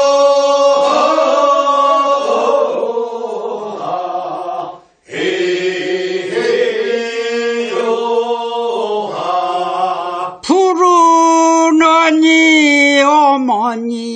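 Korean rice-paddy weeding work song (non maeneun sori) sung as call and response. A group of singers draws out the wordless refrain in two long phrases, then about ten seconds in a single lead voice starts the next verse line.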